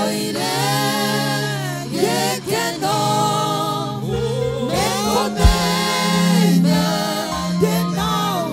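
Gospel praise and worship song: voices sing held, sliding melody lines over steady sustained low chords. A single low thump comes about halfway through.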